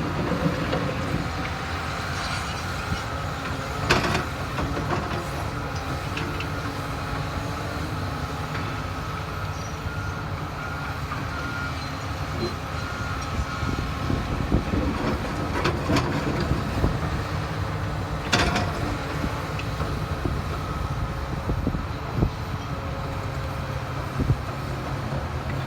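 Heavy diesel excavator engine running steadily under working load, with a few sharp metallic clanks, about 4, 16 and 18 seconds in.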